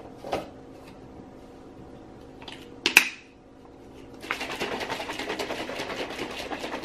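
Plastic shaker cup being closed and shaken: light handling clicks, one sharp snap of the lid about three seconds in, then rapid steady shaking from a little after four seconds in, mixing a scoop of greens powder drink.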